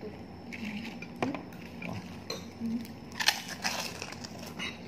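Metal fork and spoon clinking and scraping on a plate while someone eats and chews, with a few sharp clinks, the loudest about three seconds in.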